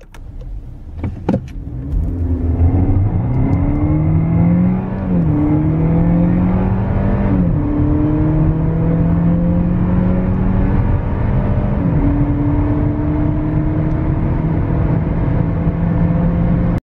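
Car engine under full-throttle acceleration from a standstill, recorded inside the cabin: a few clicks in the first seconds, then the engine note climbs in pitch, drops at gear changes about 5, 7 and 12 seconds in, and climbs again. It cuts off abruptly near the end.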